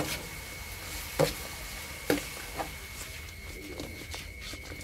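Metal ladle clanking and scraping against an aluminium wok during stir-frying over a gas burner: four sharp clanks in the first three seconds, then quieter stirring.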